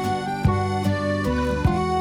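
Background music: instrumental notes over a steady beat.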